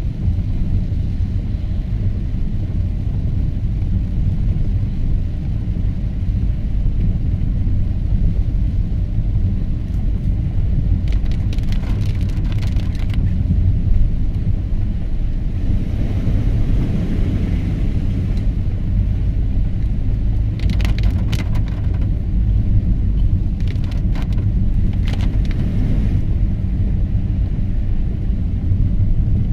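Car driving, a steady low rumble of engine and road noise, with a few brief higher crackling bursts around the middle and later on.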